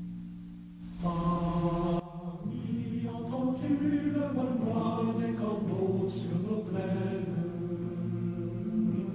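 Background music: a low held note fades out, then about a second in a choir comes in singing slow, sustained chords.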